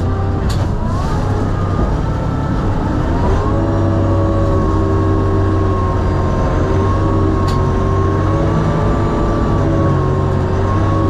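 Sherp amphibious ATV's diesel engine running under way, heard from inside the cabin. Its pitch rises about three and a half seconds in and then holds steady, with a faint click or two.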